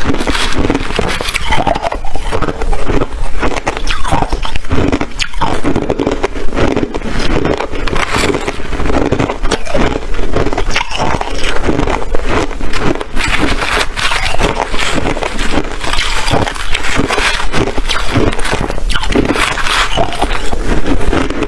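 Hard ice being chewed and crunched close to the microphone: a dense, unbroken run of sharp cracks and crackles.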